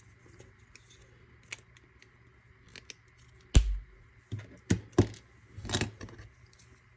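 Sharp clicks and snaps of 3D-printed plastic support material being broken off a part with needle-nose pliers. A louder knock comes about three and a half seconds in, followed by a run of clicks as the plastic parts are handled and set down on the cutting mat.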